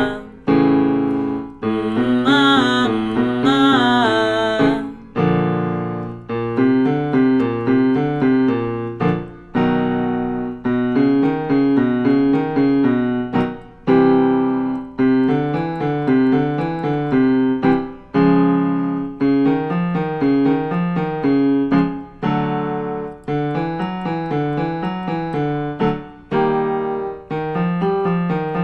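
Piano playing vocal warm-up patterns: short runs of notes over chords, repeating about every two seconds and shifting step by step. For the first four or so seconds a voice sings the exercise along with the piano.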